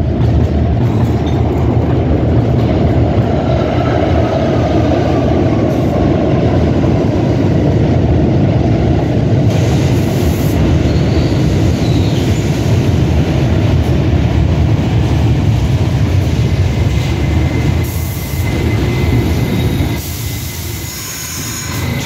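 R68 subway train pulling into an underground station: a loud, steady rumble of wheels on the rails with a faint high squeal at times, dropping off as the train slows to a stop near the end.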